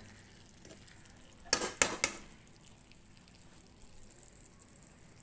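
A metal spoon scraping and knocking against a pan of stuffed brinjal, three quick sharp strokes about a second and a half in, over a faint sizzle of the food cooking on the gas.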